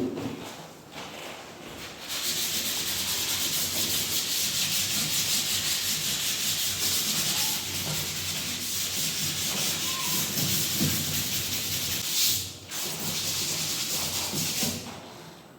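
Drywall being sanded: a steady, scratchy rasp that starts about two seconds in, breaks off briefly about three quarters of the way through, then carries on until just before the end.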